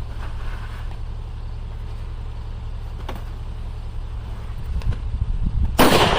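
.308 rifle fired once near the end, a sharp loud report that rings out afterwards. Before it, a low steady rumble with a faint click about three seconds in.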